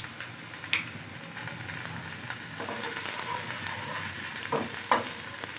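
Spice paste frying in mustard oil in a pan, with a steady sizzle, while a spatula stirs it and scrapes against the pan a few times, most sharply near the end.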